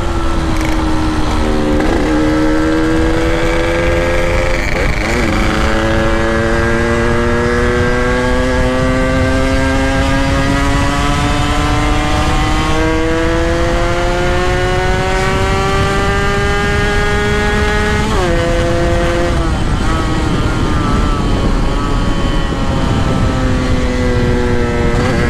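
Motorcycle engine under way, its pitch climbing steadily in each gear and dropping back sharply at each gear change, several times. Heavy wind rumble on the microphone.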